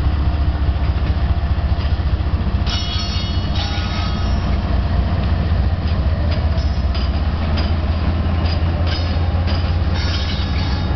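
Diesel locomotives running light pass close by with a loud, steady low engine rumble. Their steel wheels give several brief high-pitched squeals against the rails.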